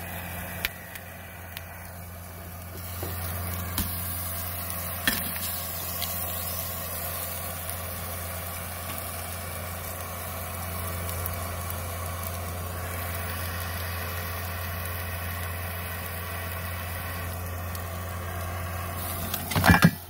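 Eggs, ham and tomatoes sizzling in a small pan on a propane canister stove, over a steady low hum. Near the end, a loud clatter as the top-heavy stove and pan tip over.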